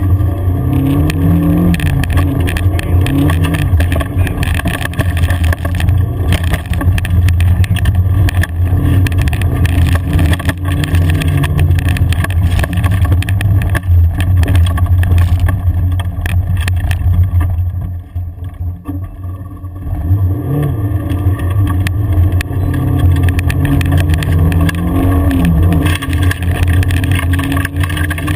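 A 4x4's engine heard from inside the cab while driving a rough gravel track, its pitch rising and falling several times as the driver accelerates and eases off, easing briefly about two-thirds of the way through. Frequent knocks and rattles come from the vehicle bouncing over the rough surface.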